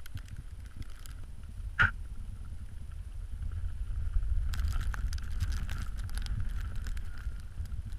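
A Pembroke Welsh corgi shuffling and scrabbling in packed snow inside a snow hole, over a steady low wind rumble on the microphone. There is one sharp sound about two seconds in, and a spell of crunching and scratching from about four and a half to six and a half seconds in.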